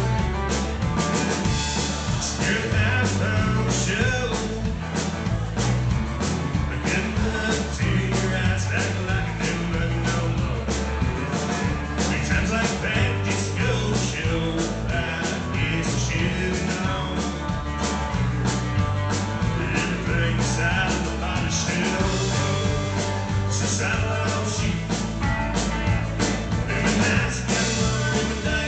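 Live rock band playing an instrumental break: electric and acoustic guitars over bass guitar and a drum kit keeping a steady beat.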